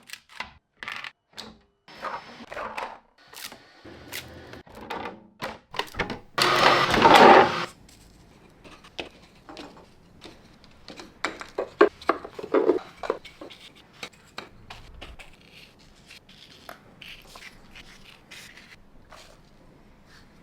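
Handling noise: a run of irregular clicks and light knocks, with a loud rushing noise lasting about a second and a half some six seconds in.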